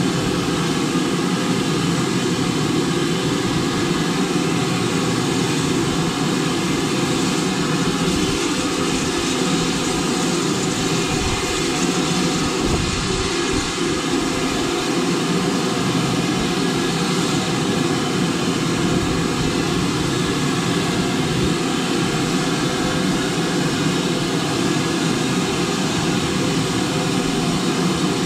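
BR Standard Class 5 steam locomotive on the move: a steady rushing and rumbling of wind and running noise.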